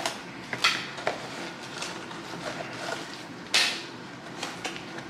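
Individually wrapped mini granola bars tipped out of a cardboard box onto metal serving trays: a few light clatters and wrapper crinkles, with one louder clatter about three and a half seconds in.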